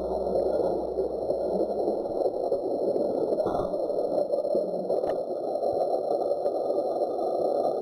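Motors and plastic gears of several battery-powered toy trains whirring steadily, with a few faint clicks.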